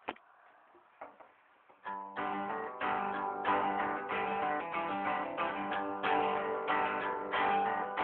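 Acoustic guitar strummed in steady chords, starting about two seconds in after a couple of soft knocks and faint handling noise, picked up by a cellphone microphone.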